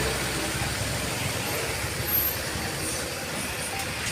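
Steady road traffic noise as a bus passes, its low engine note dying away in the first second.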